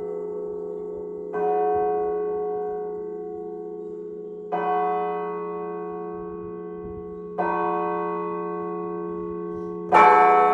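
Russian Orthodox church bells: one bell struck singly three times, about three seconds apart, each stroke ringing on and fading over a lingering low hum. Near the end the whole set of bells sounds at once, the loudest moment.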